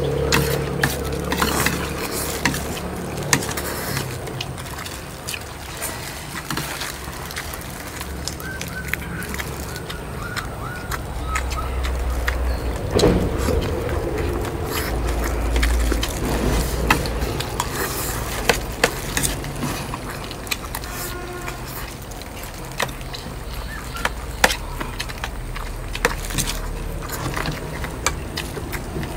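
Spoons clicking irregularly against plates during fast eating, over a steady low hum and outdoor background noise.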